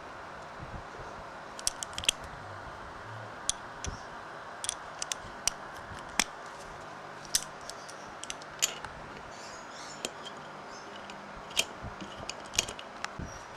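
Irregular small metallic clicks and taps as a socket and carburetor jets are handled against the aluminium carburetor body, over a steady background hiss.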